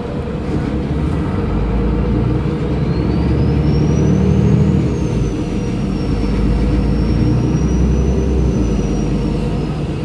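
City bus engine pulling along the street, heard from inside the passenger cabin: the engine note builds for a few seconds, dips briefly about five seconds in, then builds again before easing off. A thin high whine rises and falls in pitch over it.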